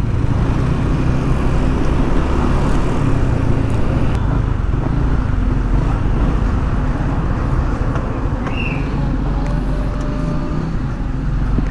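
A motor vehicle engine running steadily amid traffic and road noise.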